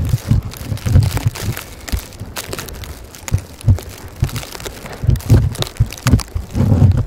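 Blizzard wind buffeting the microphone: irregular low rumbles and thumps in gusts, easing in the middle and picking up again near the end.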